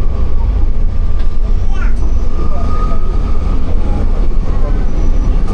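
Riding in a moving vehicle: a loud, steady low rumble of engine and road noise, with a thin steady whine above it.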